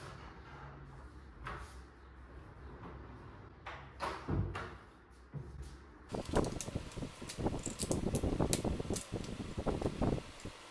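A sliding wardrobe door rolling along its track with a few knocks, over a low steady hum. Then a stretch of dense rustling and tapping as thin laminate sheet strips are handled and laid on a wooden board.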